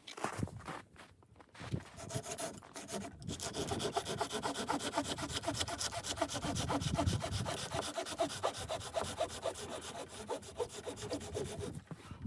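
Wood being sawn by hand with a steady, rapid back-and-forth rhythm, starting about two seconds in.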